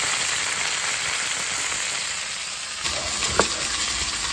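Fish head frying in hot oil in a pan: a steady sizzle. About three seconds in, a single sharp knock sounds over it.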